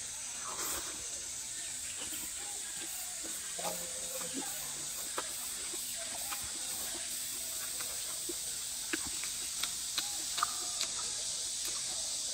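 Close-up eating sounds of rice noodles being slurped and chewed: scattered soft wet smacks and small clicks, over a steady high hiss.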